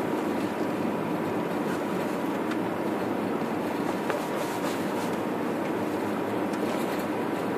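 A car's steady running noise, tyres on a snow-packed road with the engine under it, heard from inside the cabin, with a faint steady high tone running underneath.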